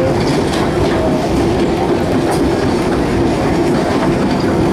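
Vintage passenger train rolling along the track, its wheels clacking over the rail joints under a steady rumble and drone.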